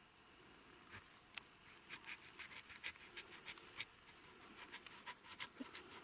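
Faint, irregular crackling and clicking that starts about a second in: a knife being worked into rotten wood to cut a bracket fungus off a dead tree trunk.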